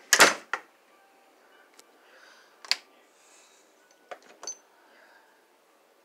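A glass-paned wooden door being closed: a brief rush of noise at the start, then a few sharp clicks from the knob and latch, one near the middle and two close together a little after four seconds in.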